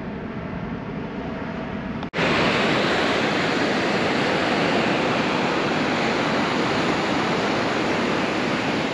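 Distant jet airliner's engine rumble for about two seconds, then an abrupt cut to louder, steady ocean surf washing onto the beach.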